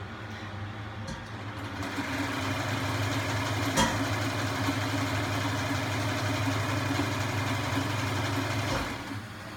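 Electric sewing machine running steadily, starting about two seconds in and stopping near the end, with one sharp click partway through.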